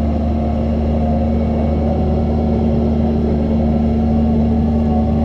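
Doosan DX140 excavator's diesel engine running steadily at a constant speed, with an even low hum.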